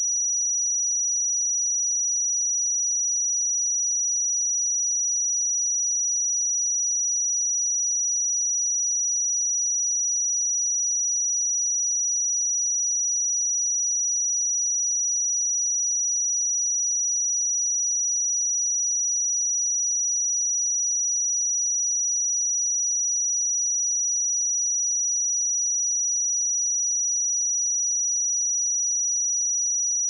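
Pure 5838 Hz sine-wave test tone, one steady high-pitched whistle held at a constant level, used to check speakers or headphones.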